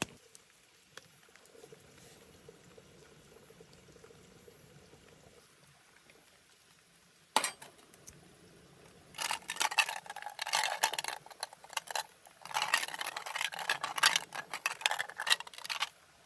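A sharp click, then liquid poured into a container in two goes of about three seconds each, crackling and splashing.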